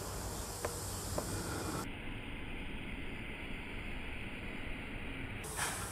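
Steady outdoor background hiss with a low hum, with two faint clicks about a second in and a short scrape near the end.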